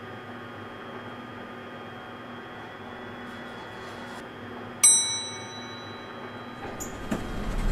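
Elevator arrival chime: a single bright ding about five seconds in, its several tones ringing and fading over about a second, over the steady hum of the lift car. A low rumble builds near the end.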